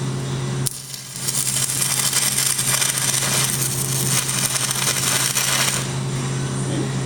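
Stick (arc) welding a tack weld on a steel frame: the arc is struck about a second in and gives a steady crackling sizzle for about four and a half seconds before it is broken off. A steady low hum runs underneath.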